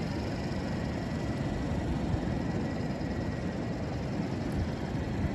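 Steady rumble of wind buffeting the microphone, with a faint thin whine held steady underneath.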